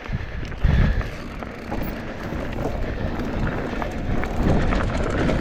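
Mountain bike rolling down a dirt and rock trail: tyre noise over the ground, small rattles from the bike and wind on the microphone, getting gradually louder as the bike picks up speed.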